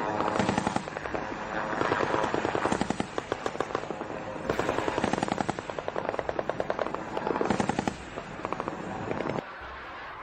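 Automatic gunfire, with rapid shots coming in several long bursts, as from the tracer fire streaking across the night sky. About nine seconds in the firing stops suddenly, leaving a steady rushing noise.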